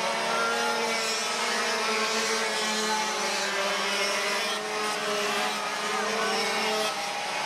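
A pack of two-stroke dual-engine racing karts running at race speed, their many high engine whines overlapping, with pitches rising and falling as karts pass.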